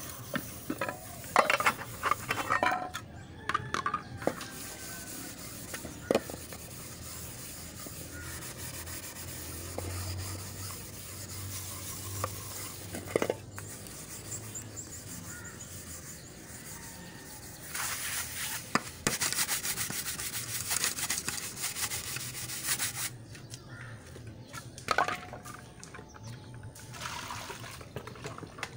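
Aluminium cooking pots being scrubbed by hand, a scratchy rubbing in stretches, with a few sharp metal clanks in the first seconds as pots knock together.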